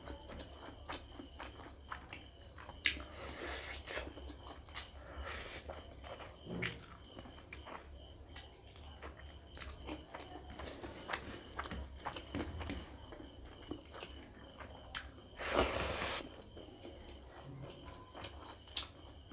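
Close-up eating sounds: a man chewing a mouthful of rice and pork curry, with soft clicks and smacks as his fingers squish and mix rice and curry on the plate. About three-quarters of the way through comes a louder noisy burst of about half a second.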